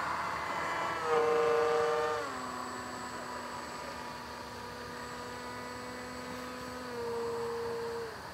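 Electric motor and propeller of a foam RC model airplane whining overhead as the throttle changes: pitch and loudness jump up about a second in, drop to a lower steady whine a second later, and rise briefly again near the end.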